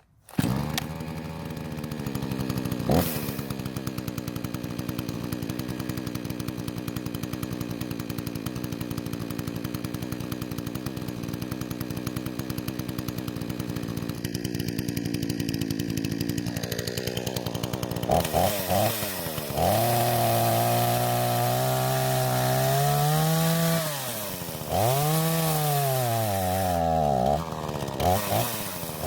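Craftsman two-stroke chainsaw idling steadily, then, about two-thirds of the way in, revving up and down several times, held at high throttle for a few seconds as it cuts through a downed limb. It runs smoothly and cleanly at idle and under throttle.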